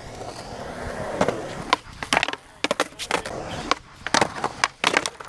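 Skateboard wheels rolling on concrete, then a run of sharp clacks and knocks from skateboards popping and hitting concrete, about a dozen of them from a second in onward.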